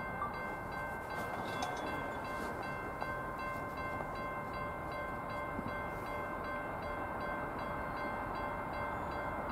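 A CSX empty coke freight train approaching before it comes into view: a steady rumble with several steady high ringing tones held throughout, and a faint fast ticking up high.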